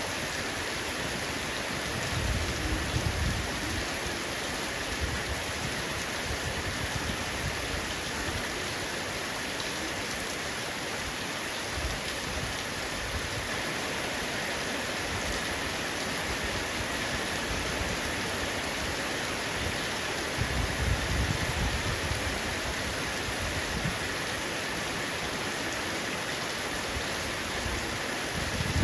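Heavy rain falling steadily on a roof, a dense, even hiss, with a low rumble a couple of seconds in and again about two-thirds of the way through.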